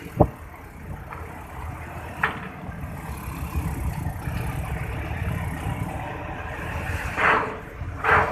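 Low, steady engine rumble of a ferry under way, with a sharp click just after the start and a couple of brief rustles near the end.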